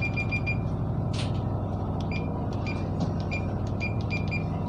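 Short high key beeps from a Furuno GP-32 GPS navigator, its cursor pad pressed over and over to step through and change a waypoint's coordinate digits. Some beeps come in quick runs, others singly, over a steady low engine hum.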